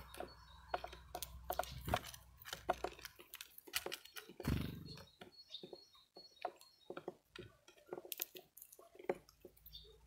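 European greenfinch husking sunflower seeds on a wooden feeder table: an irregular run of sharp clicks and cracks as its beak splits the shells and pecks the boards, with one louder, longer rustle about halfway through.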